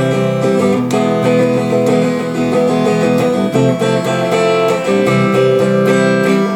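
A guitar strummed in chords, the notes ringing on between strokes, picked up through a Shure SM58 dynamic microphone.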